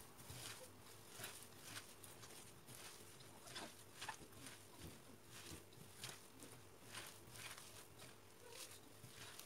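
Hands kneading chopped greens with salt in a bowl: faint, irregular soft rustling and squishing, a few light crackles a second.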